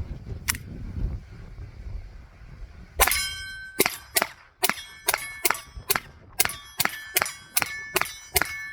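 Taurus TX22 .22 LR pistol firing a rapid string of shots, about two to three a second, starting about three seconds in. Each shot is followed by a short metallic ring.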